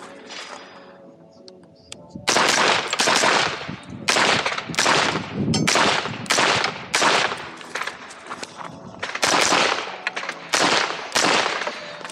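AR-style semi-automatic rifle firing rapid strings of shots, in quick pairs and clusters with short pauses between them, each shot followed by a ringing echo. The firing starts about two seconds in.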